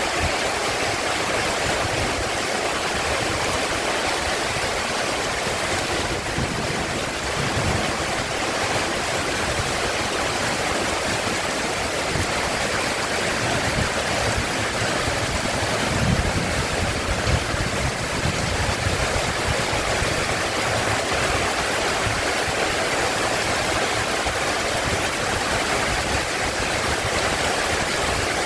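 Heavy rain pouring down steadily in an even, dense hiss, with a brief low rumble about sixteen seconds in.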